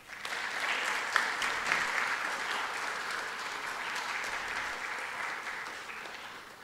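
Audience applauding: a burst of clapping that starts suddenly, holds steady and fades out after about six seconds.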